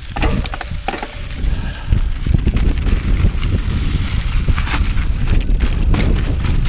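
Mountain bike riding down a rocky dirt trail: wind buffeting the microphone in a low rumble that grows louder about two seconds in, with clicks and rattles from the bike and tyres going over rocks.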